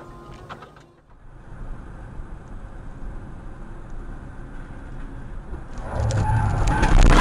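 A car driving at speed on a highway, heard from inside the cabin through a dashcam: a steady hum of engine and tyres that gets much louder about six seconds in, with a sudden loud noise near the end.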